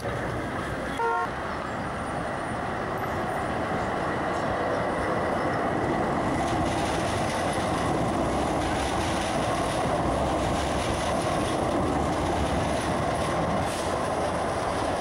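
Trams running along a city street: steady rolling and running noise from passing trams. About a second in comes a brief pitched toot.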